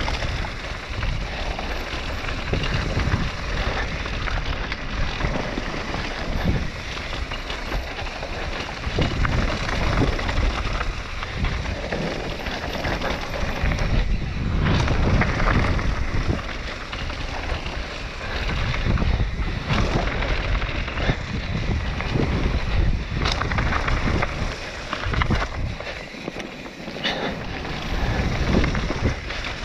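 Wind buffeting the microphone and knobby mountain-bike tyres rolling fast over loose gravel and dirt, with frequent small clatters and knocks from the bike over the rough ground.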